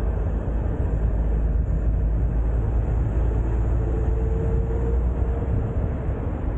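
Open-top convertible driving along, with a steady deep rumble of engine and tyres on the road. A faint thin whine sits above it for a second or two about four seconds in.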